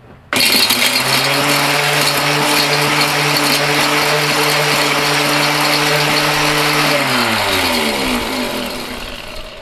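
Mighty Mill hammer-mill ore crusher starting abruptly and running loud and steady as it shreds a few SATA data-cable connectors. About seven seconds in it is switched off, and its pitch falls as it winds down.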